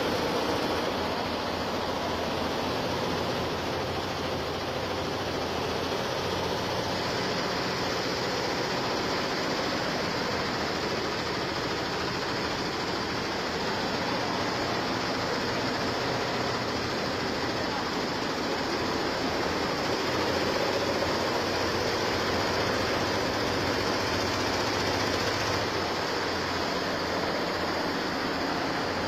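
A SINSIM 24-head, 9-needle embroidery machine stitching at 900 stitches a minute: a steady, dense, rapid mechanical clatter of many needle heads running together, with a constant hum underneath.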